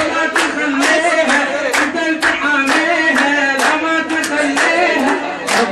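A group of men chanting a festive song together, with loud rhythmic hand-clapping of about three claps a second.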